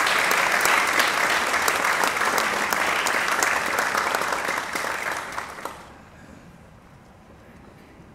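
Audience applauding, the clapping tapering off and stopping about six seconds in.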